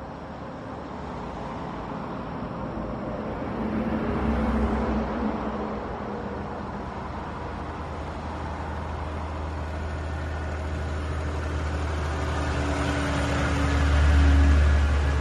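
Volvo FH truck's diesel engine running as it drives past, with a low steady hum that swells briefly about four seconds in. The sound grows louder toward the end, loudest as the truck passes close by.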